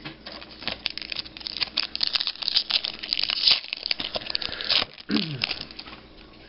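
Foil wrapper of a basketball trading-card pack crinkling as it is handled and torn open, a dense run of crackles that stops about five seconds in.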